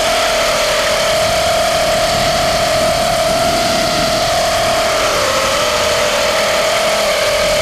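Diatone GT200S quadcopter's brushless motors spinning with a steady high whine that wavers slightly in pitch. It is the strange noise, with excessive vibration, that the motors began making after they overheated when the drone hit a backpack and was slow to be disarmed.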